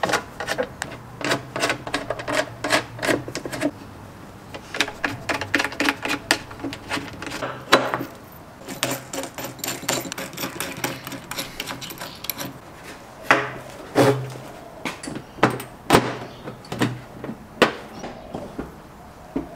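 Runs of clicks, taps and knocks from handling the plastic Safari snorkel body while its upper mounting bracket and stainless mounting studs are fitted.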